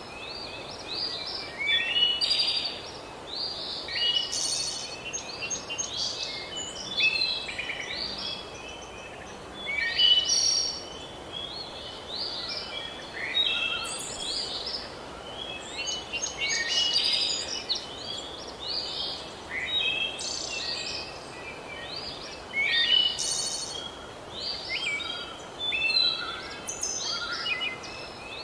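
Several birds singing and chirping in overlapping phrases every second or two, over a steady background hiss.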